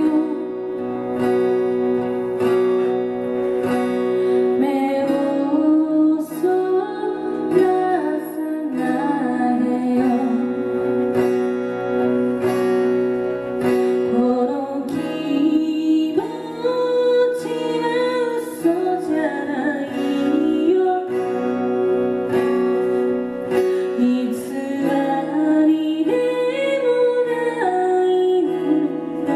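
A woman singing while strumming an acoustic guitar, her voice carrying a wavering melody over steady guitar chords.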